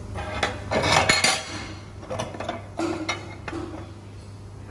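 Steel plates and a metal clamp clanking and clinking as they are handled and clamped, in a cluster of knocks in the first second and a half and a few more near the middle, over a steady low machine hum.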